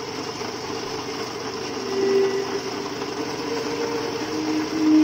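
Small air-cooled petrol engine running steadily under load, driving a vertical pellet mill as it presses out feed pellets.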